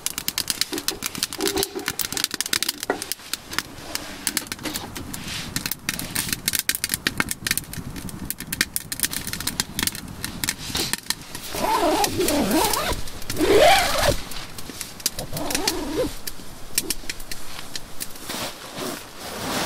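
Wood fire crackling and popping in a Pomoly T1 Mini titanium wood stove, with dense sharp snaps. About two-thirds of the way through, a few seconds of a wavering, gliding call-like sound stand out as the loudest part.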